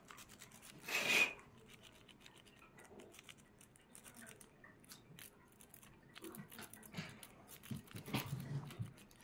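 A city rake scraping in and out of a Brucke shielded padlock's keyway, the pick clicking quickly and faintly over the serrated pin stacks under very light tension. There is a louder scrape about a second in.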